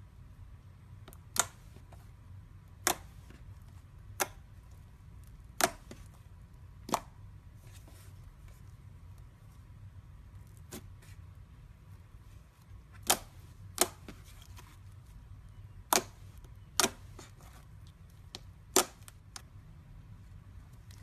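Slime being pressed and folded by hand, giving sharp clicking pops from trapped air, about ten of them spread irregularly, over a low steady hum.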